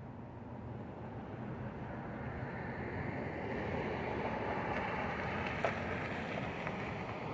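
An SUV passes close by: its tyre and engine noise swells over a few seconds and then fades, over a steady low street-traffic hum. There is one sharp click just before it goes past.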